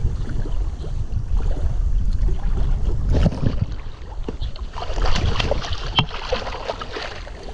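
Water splashing as a released Murray cod swims off from a lip grip at the surface, loudest about five to six seconds in, over a steady low rumble of wind on the microphone.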